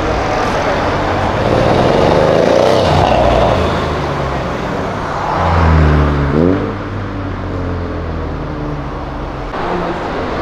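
Mercedes-AMG C63 coupé's twin-turbo V8 running as it passes at low speed in traffic, then accelerating about six seconds in with a short rising engine note, before settling back to general traffic noise.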